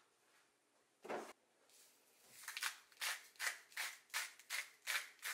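Spice shaker shaken over raw chicken: one swish about a second in, then a quick even run of rattling shakes, about three a second, from about two and a half seconds in.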